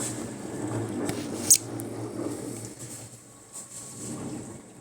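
Electrolux LTP15 washing machine running with a steady low hum, with a few clicks and one sharp click about one and a half seconds in.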